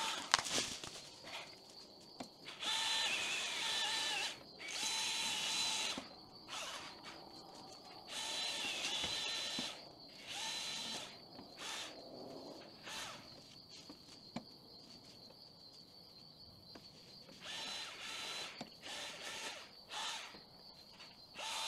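Power saw cutting small trees, running in short bursts of one to two seconds, revving up and down and stopping between cuts.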